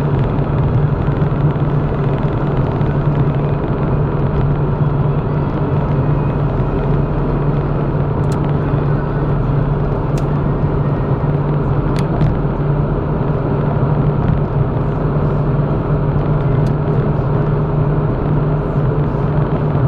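Steady in-cabin drone of a car cruising at motorway speed, engine and tyre noise with a strong low hum, heard from inside the car. A few faint, brief high ticks come through near the middle.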